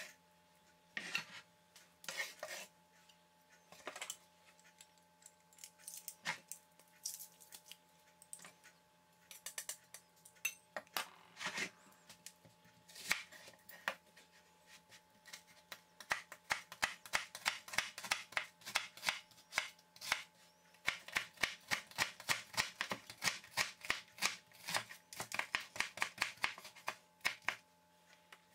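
Chef's knife cutting on a cutting board: scattered single cuts through tomato and a red onion at first, then from about halfway a fast, steady run of chopping as the onion is diced.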